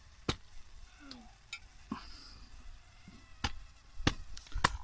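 Small twig-and-leaf cooking fire crackling, with scattered sharp pops and snaps, about five loud ones spread over a few seconds, as a fish grills on a stick over it.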